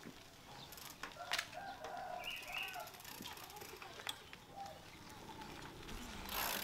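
Chickens clucking, with a few sharp clicks and a louder rushing noise near the end.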